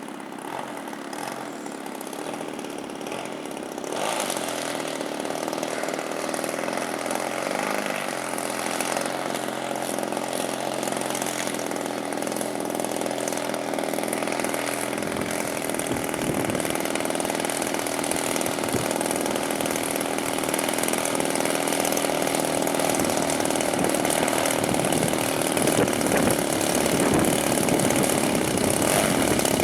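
Small engine of a radio-controlled model airplane running in flight, a steady buzz that gets suddenly louder about four seconds in and keeps growing louder as the plane comes closer.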